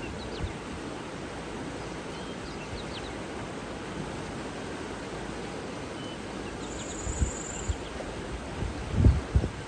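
Steady rushing water with faint, short bird chirps over it. A brief high trill sounds about seven seconds in, and low wind buffets on the microphone come near the end.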